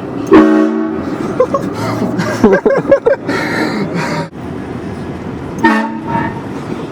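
Train horn sounding a short blast of several tones together, followed near the end by a second, shorter blast.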